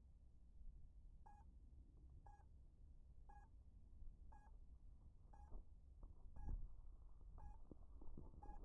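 A faint electronic beeper giving short, identical beeps about once a second, over a low background rumble.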